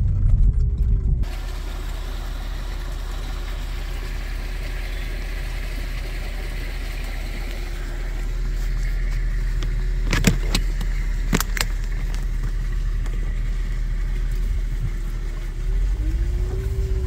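Cabin sound of a 2007 Mercedes-Benz GL450 SUV driving slowly on a rough gravel road: a steady low rumble of engine and tyres with a faint steady hum. There are two sharp knocks a little past the middle, from the jolting ride.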